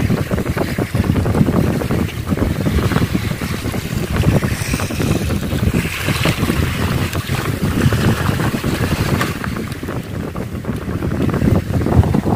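Strong sea wind buffeting the microphone: a loud, gusting low rumble that rises and falls.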